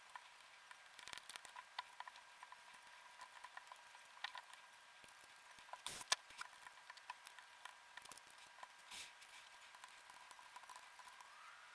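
Faint scattered clicks and taps, typical of small plastic parts and tools being handled during a DualSense controller teardown, with a sharper double click about halfway through. A faint steady high-pitched hum runs underneath.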